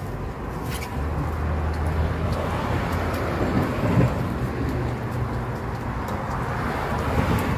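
Steady low rumble of road traffic, with the deep hum of passing vehicle engines shifting in pitch partway through.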